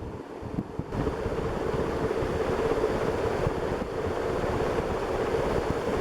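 Early-1980s SMC Laguna 132 cm ceiling fan running fast, its strong airflow buffeting the microphone in an uneven, gusty rush over a steady hum.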